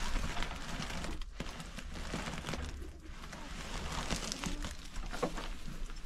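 A woven plastic feed sack rustling and crinkling as it is handled, with scuffing and small knocks of movement throughout.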